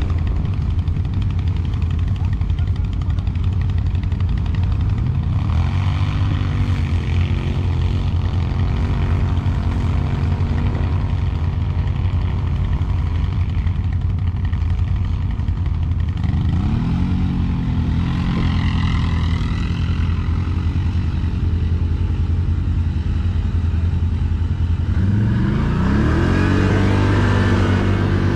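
ATV engine running steadily, its revs rising and holding at a higher pitch three times: about five seconds in, about sixteen seconds in, and again about twenty-five seconds in. The last rise is the loudest.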